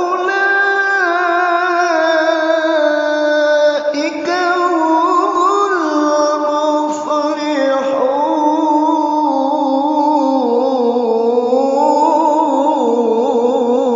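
A man reciting the Quran in the melodic tajwid style, drawing words out into long held notes whose pitch bends and wavers in ornamented turns, with one brief pause about four seconds in.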